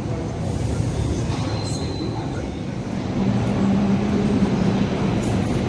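Hong Kong Light Rail Phase 1 light rail vehicle running on the track: a low rumble, joined about three seconds in by a steady low motor hum.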